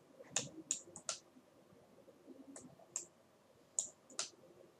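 Sharp clicks from computer mouse buttons and keys as the user works in 3D modelling software: about eight irregular clicks, a few coming in quick pairs.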